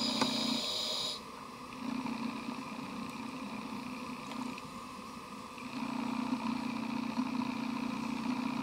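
Scuba diver breathing through a regulator underwater: three long stretches of low, bubbling exhalation rumble with short gaps between them, and a brief hiss of inhalation in the first second.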